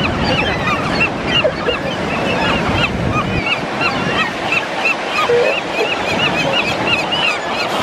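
A large flock of gulls calling over one another in a constant din of short cries. A low rush runs under the calls and drops away about three seconds in.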